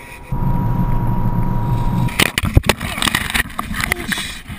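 Wind and rumble on the microphone of a camera riding on a moving car, cut off about two seconds in by a few sharp thumps and crackling as the rider tumbles off into a cornfield, then rustling of corn stalks and leaves.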